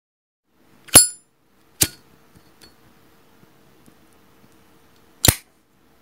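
Sharp metallic clicks of a Zippo lighter's hinged lid and mechanism: a loud click with a brief ringing ping about a second in, a second click just after, a faint tick, then another loud click near the end.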